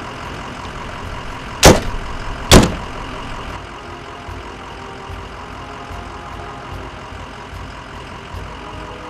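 Ambulance engine idling steadily, with two loud door slams about a second apart near the start.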